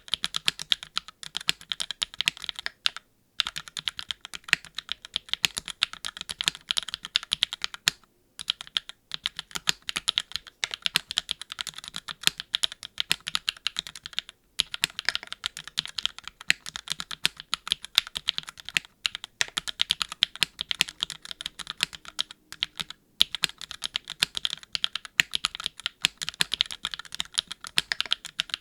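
Fast, continuous typing on a Keycult No.2 TKL custom mechanical keyboard: Gateron x Swagkey Deepping switches under GMK doubleshot ABS keycaps on an aluminium plate, gasket-mounted with no foam. It pauses briefly a few times.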